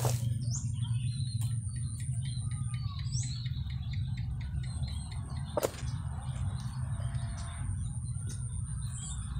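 Small birds chirping repeatedly in the background, with a steady high thin tone above them and a low steady hum underneath. Two sharp knocks cut through, one at the very start and one about halfway.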